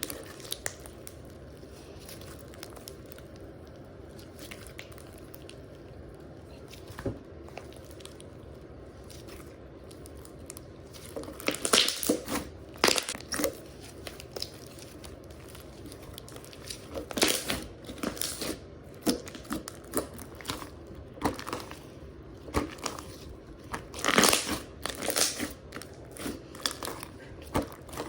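Slime being squished and stretched by hand, with irregular crackling, crinkly pops in bursts. A quiet stretch comes first, and the bursts start about a third of the way in.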